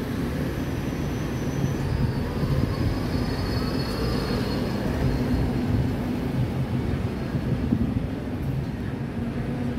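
Steady low rumble of a moving vehicle, with faint high-pitched whines that come and go about two to five seconds in.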